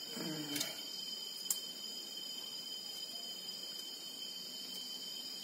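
Steady high-pitched insect trill, typical of crickets, carrying on without a break. A faint short murmur of voice comes right at the start, and a single light click about a second and a half in.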